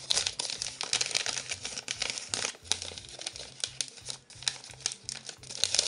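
Thin orange wrapping paper crinkling and rustling in many quick, irregular crackles as hands unwrap a small gift packet.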